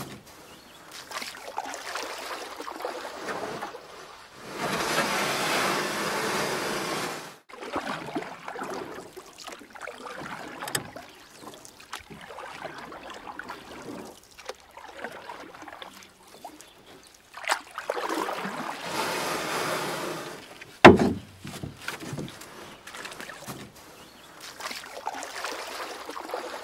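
A person jumping off a rock ledge into a swimming hole: one loud splash about three-quarters of the way through. Before it come two stretches of steady rushing noise.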